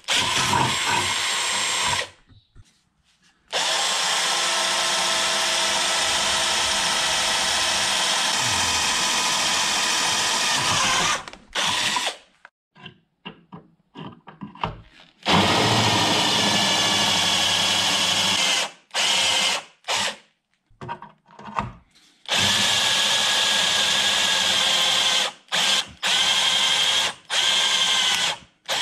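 Power drill boring out spot welds in a car body's sheet-metal layers. It runs in several long bursts of a few seconds each, stopping and starting again between them.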